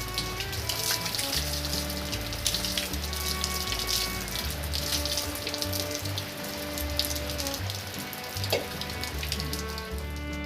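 Background music with held notes and a steady bass line, over a steady hiss of rain.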